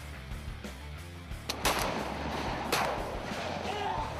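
Shotgun shots: a faint crack then a loud shot about a second and a half in, and another about a second later, each trailing off with a short echo, over a steady music bed.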